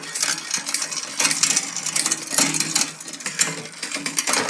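Bicycle chain running through the rear derailleur and over the cassette as the crank is turned by hand, with rapid metallic clicking and chain clatter as gears are shifted. The shifting is not running true, which is typical of a bent derailleur hanger.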